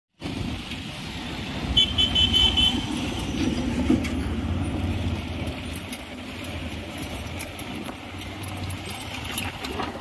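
Road traffic passing close by: motorcycle and vehicle engines running with a steady low rumble. About two seconds in, a vehicle horn beeps in a quick run of short toots.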